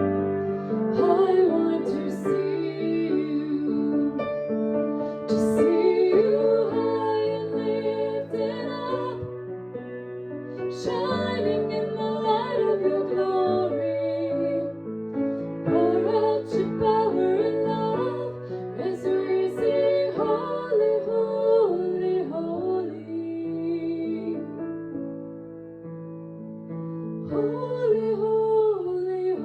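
A woman singing a worship song to piano accompaniment.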